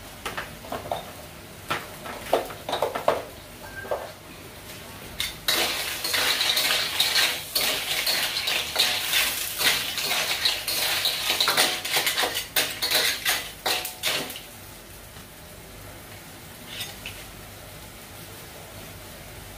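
A spatula scraping and clattering clams in their shells around a wok while stir-frying them. A few scattered clinks come first, then a long stretch of continuous rapid scraping and rattling that stops about two-thirds of the way through.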